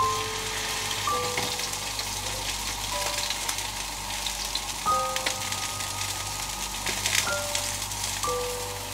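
Salmon fillets sizzling and crackling on a hot ridged grill pan, the sizzle starting as they are laid in. A few single music notes sound over it.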